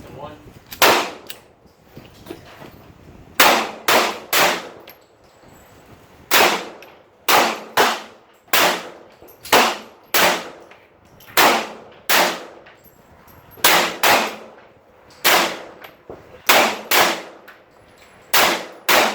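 Gunshots, about twenty single shots fired at an uneven pace, several in quick pairs or threes, each sharp crack followed by a brief ringing tail.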